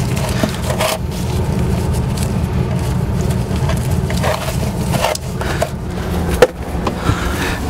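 Nitrile gloves being pulled from their cardboard box and handled: continuous rustling and rubbing with scattered crinkles and clicks, and a sharp tap late on.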